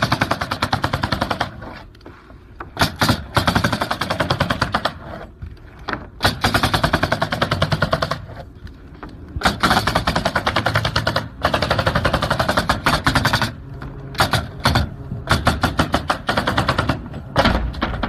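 Pneumatic coil roof nailer bump-firing nails through OSB roof sheathing in rapid runs of one to two seconds, separated by short pauses as the nailer is moved along.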